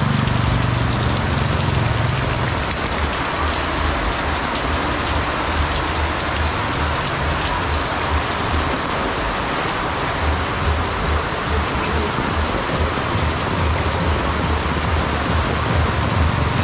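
Heavy rain falling, a steady even hiss, with a low hum beneath it for the first two or three seconds.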